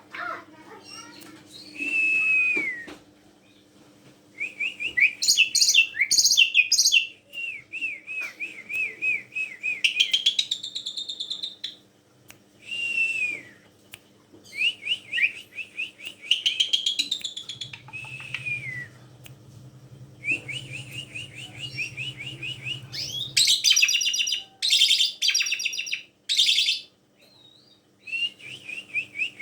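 Pied starling (jalak suren) calling loudly in repeated phrases: runs of short falling whistles mixed with harsh, shrill screeching chatter, each burst a second or two long with short pauses between, the harshest screeches coming in the last third. A faint steady hum lies underneath.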